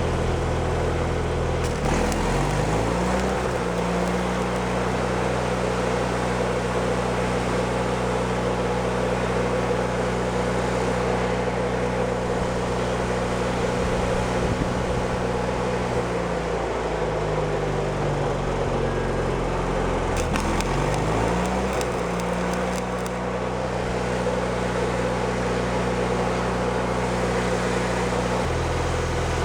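An engine running steadily, speeding up about two seconds in, dropping back around sixteen seconds, speeding up again around twenty-one seconds and dropping back near the end.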